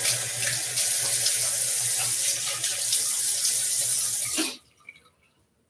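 Bathroom tap running into the sink while water is splashed onto the face to wet it for shaving; the water stops about four and a half seconds in.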